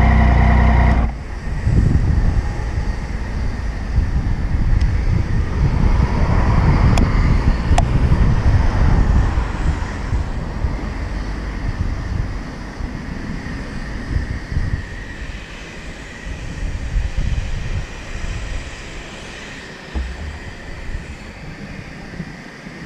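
Yamaha MT-09 inline three-cylinder engine idling steadily, then cutting off abruptly about a second in. Uneven low wind rumble on the microphone follows, slowly fading.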